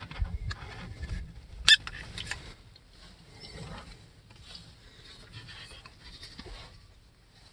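Plastic parts of a handheld cordless vacuum cleaner being handled and taken apart: light rattles, scrapes and small clicks, with one sharp click nearly two seconds in. The motor is not running.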